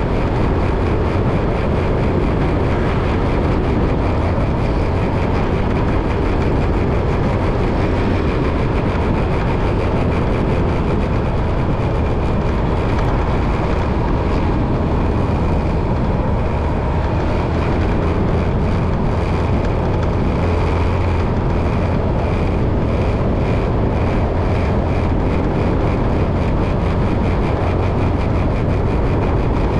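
Steady vehicle noise of driving along a road: a loud low rumble with engine and tyre noise and a faint rapid pulsing.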